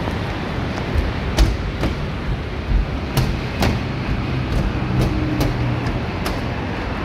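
Footsteps on a metal-plated skybridge walkway, sharp knocks in uneven runs, often in pairs about half a second apart, over a steady bed of road traffic noise.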